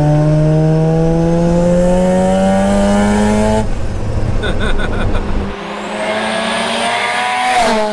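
Single-turbo Mazda RX-7 FD3S's 13B two-rotor rotary engine accelerating hard, its pitch climbing steadily through a gear. After a cut it pulls again with a thin turbo whistle rising alongside. Near the end the revs drop with a short burst of hiss, the sound of the wastegate's screamer pipe venting.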